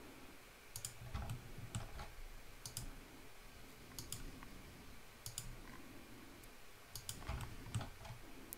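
Faint, irregular clicking of a computer mouse placing points, several clicks coming in quick pairs, with a few soft low thumps.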